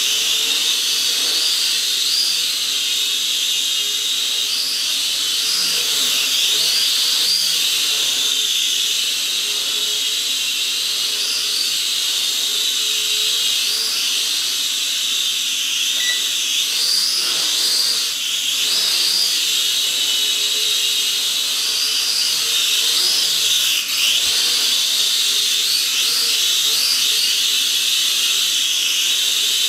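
SKRC Q16 mini quadcopter's motors and propellers whining in flight, a high-pitched whine that rises and falls in pitch every second or two as it manoeuvres.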